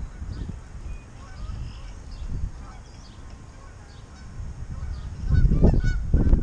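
Geese honking repeatedly, over a low rumble of wind on the microphone that swells louder for about a second near the end.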